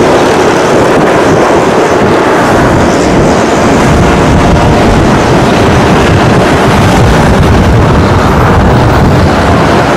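Loud, steady jet engine noise from a twin-engine airliner touching down and rolling out on a wet runway, with wind rumbling on the microphone. The low rumble builds a few seconds in, as the jet settles onto the runway.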